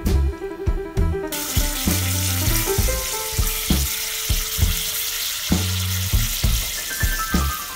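Beef and pork cubes sizzling as they brown in butter in a stainless steel pot; the sizzle starts abruptly about a second in. Background music with a steady drum beat plays throughout.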